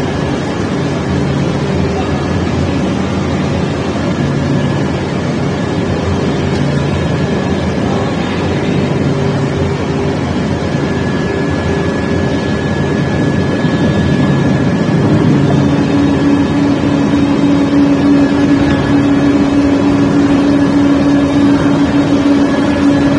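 Ring rolling machine running as it rolls a red-hot forged steel ring: a steady mechanical drone with low hums. A hum grows stronger about two-thirds of the way through.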